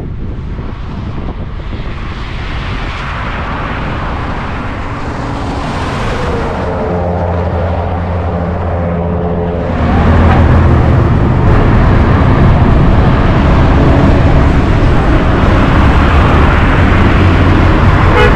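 Road traffic passing on a busy highway, heard from a moving bicycle with wind rushing on the microphone. A vehicle's engine hum stands out about seven seconds in, and the traffic gets louder from about ten seconds on.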